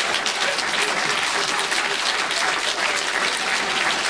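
Live audience applauding: a steady, dense patter of many hands clapping.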